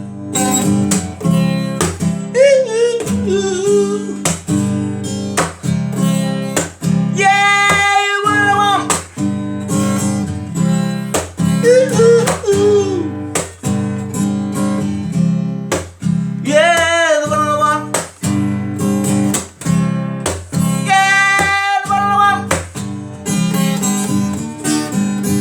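Acoustic guitar strummed steadily, with a voice singing wordless phrases over it now and then.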